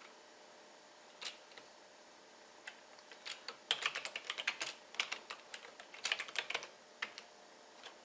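Computer keyboard typing: a few single keystrokes, then a fast run of clicks near the middle and a shorter run about a second later.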